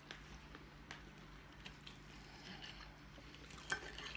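Quiet eating: soft chewing and faint clicks of a metal fork on dishes, with one sharper click near the end.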